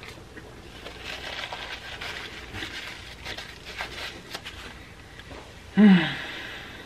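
Close-miked chewing of chewy pizza crust, with wet mouth clicks and smacks. Just before the end, a loud short hummed "mmm" falls in pitch.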